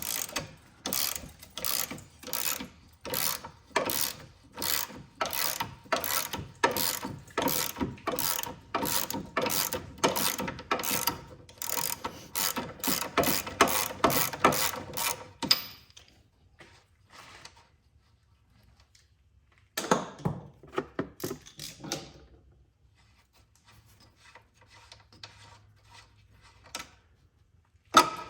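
Socket ratchet wrench being swung back and forth to back out a lower control arm mounting bolt, its pawl clicking about twice a second in a long steady run. It stops, clicks again briefly later, and one sharp metallic clack comes near the end.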